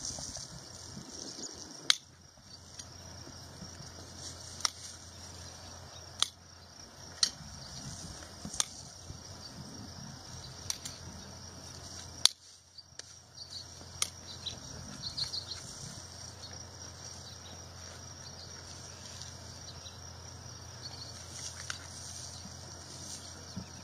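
Hoof-trimming tools cutting a horse's front hoof: sharp, separate snaps every second or two, then fewer after about fourteen seconds.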